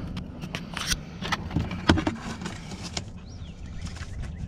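Scattered clicks and light taps of plastic being handled at the steering column, as the turn signal switch's connectors and plastic tabs are worked loose.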